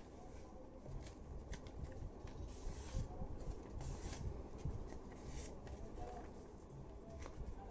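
A sheet of A4 paper being handled and folded, rustling and creasing in several short strokes.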